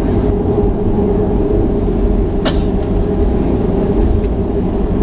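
Cabin noise of a Boeing 737-500 taxiing: a steady rumble and hum from its CFM56 engines, with one sharp knock about halfway through.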